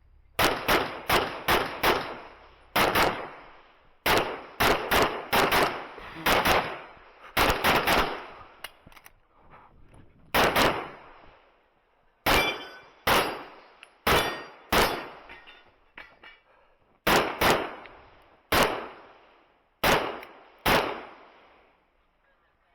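Pistol shots fired in fast pairs and strings, about thirty in twenty seconds with short pauses between groups, as a shooter runs a timed practical-shooting stage.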